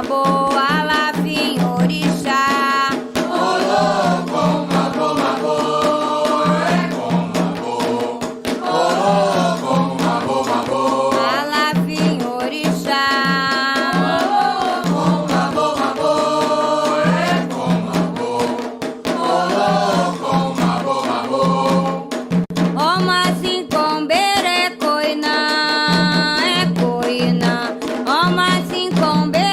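Candomblé devotional song to Xangô: voices singing a chant over steady, rhythmic drumming.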